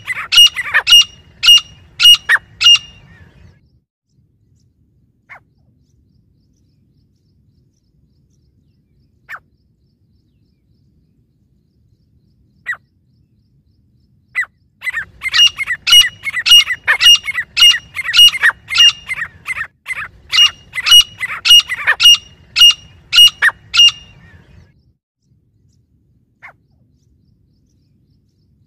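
Grey francolins calling: a loud, high call repeated rapidly, about three notes a second. One run ends about three seconds in; after a quiet stretch broken by a few faint single notes, a longer run of about ten seconds begins near the middle.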